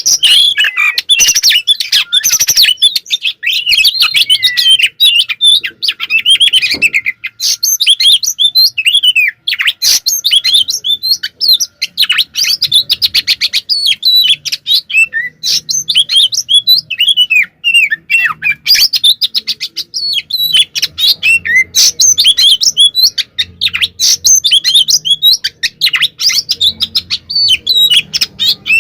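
Oriental magpie-robin (kacer) singing loud and nonstop: a fast, crowded run of varied whistles, sweeping notes and harsh clicking rattles. This is the agitated 'fighting' song (kacer tarung, 'konslet' style).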